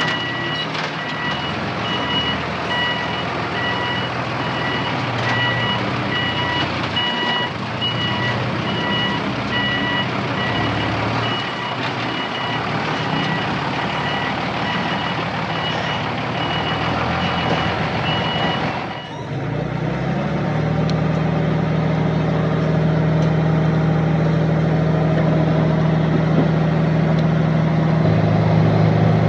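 A construction vehicle's reversing alarm beeps steadily over the noise of a running diesel machine, then stops suddenly about two-thirds of the way through. After that the engine runs on alone with a steady drone, and a deeper tone joins it near the end.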